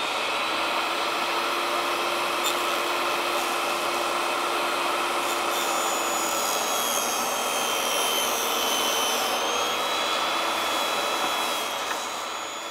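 Portable jobsite table saw running and ripping a cedar strip lengthwise to width, a steady motor whine with blade noise. The motor starts winding down near the end.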